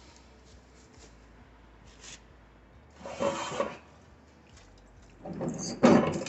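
A porcelain toilet being turned around, scraping and rubbing against its support: a short scrape about three seconds in and a longer, louder one near the end.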